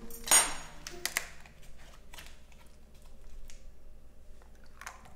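Plastic drink bottle cap being twisted open: a short, loud crackle as the seal breaks, then a couple of sharp clicks and faint handling ticks.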